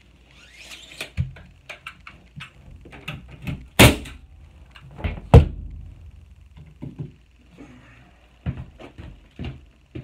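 Tape measure blade retracting with a rush and a snap near the start, then scattered knocks and thuds from handling a wooden board and tools, the loudest two thumps about four and five and a half seconds in.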